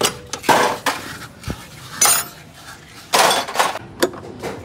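Metal hand tools and loose bolts clinking and clattering in several short, irregular bursts, with a brief ringing clink about two seconds in and a few sharp clicks near the end.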